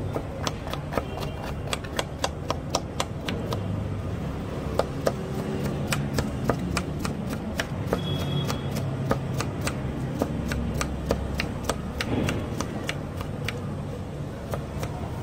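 Knife chopping green bell pepper (capsicum) on a wooden chopping board: quick, uneven knife strikes against the board, several a second, thinning out near the end, over a steady low background hum.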